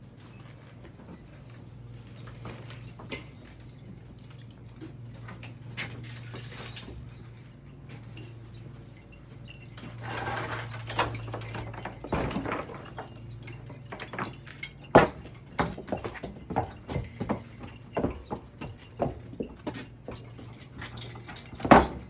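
Mules' hooves knocking and scuffing on a hard surface in an irregular series of sharp clicks, thickest in the second half, over a steady low hum.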